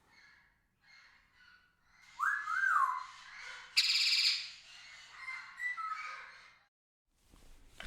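Parrot calling: after a quiet start, two quick rising-and-falling whistles about two seconds in, then a loud harsh squawk, followed by softer whistling chatter that dies away.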